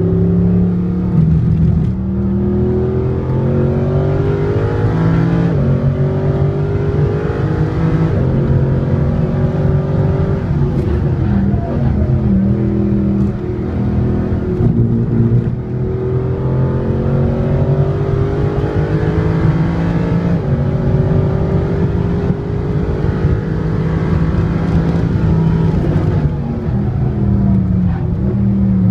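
Mercedes SLS AMG's 6.2-litre V8 through an Akrapovič exhaust, heard inside the cabin at track speed. The engine pitch climbs hard under acceleration and then falls back, about five times over.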